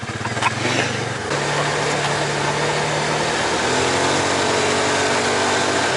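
Polaris side-by-side's engine running as the machine drives off, its pitch stepping up about a second in, with a steady rushing noise over it.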